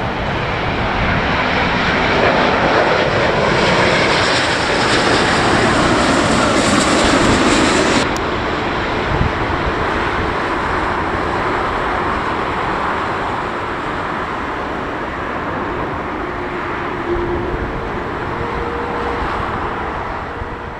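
Airbus A350-1000 jet engines (Rolls-Royce Trent XWB) as the airliner passes low overhead on final approach: a loud roar with a high hiss that builds over the first few seconds. About eight seconds in the hiss cuts off sharply, and a steadier, duller jet roar continues while the aircraft is on the runway, fading out at the end.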